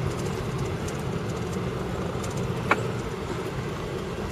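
Steady engine and road noise of a Dodge Sprinter 2500 van, heard from inside the cab while it drives slowly. A single short click about two-thirds of the way through.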